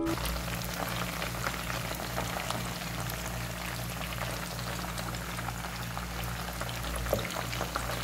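Batter-coated chicken drumsticks sizzling and crackling in hot oil in a frying pan, over a steady low hum.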